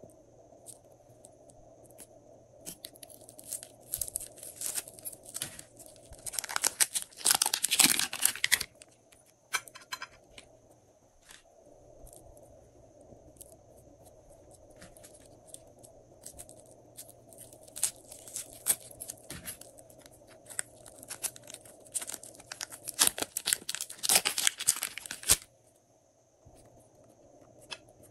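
Slime being squished and worked in plastic piping bags, crackling and popping. The crackle comes in two denser spells, about a quarter of the way in and again near the end.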